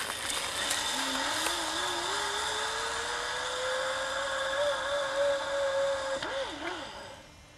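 Zipline trolley pulley running along the cable under a rider: a steady rolling whir whose pitch climbs as it picks up speed, holds, then wavers and dies away near the end.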